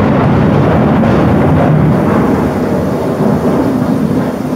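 Thunder rumbling loudly over steady rain, heavy in the low end and easing slightly in the last couple of seconds.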